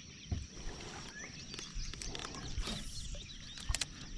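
Quiet outdoor pond ambience: a steady high-pitched hum, a few faint chirps, and scattered light knocks and clicks.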